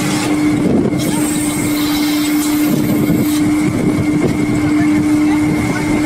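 Tour boat's engine running steadily: a constant low drone with a thin high tone above it.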